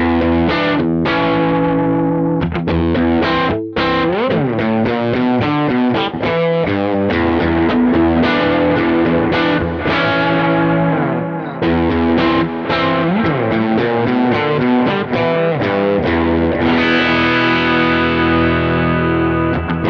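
Distorted electric guitar played through a Kemper Profiler amp profile: picked chords and lead phrases with string bends, settling into a long ringing chord near the end.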